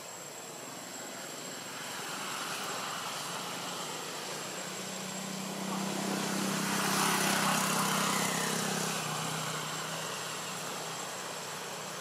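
A passing engine: a low hum that swells over several seconds, peaks about seven to eight seconds in, drops slightly in pitch and fades away.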